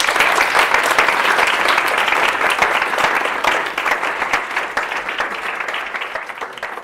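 Audience applauding: many hands clapping in a dense patter that slowly thins and quietens toward the end.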